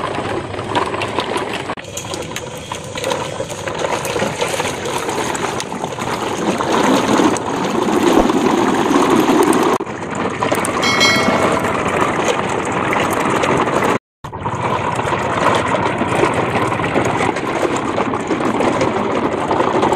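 Muddy water sloshing and splashing around a long plastic toy trailer truck moving through it. The sound breaks off briefly about two-thirds of the way through.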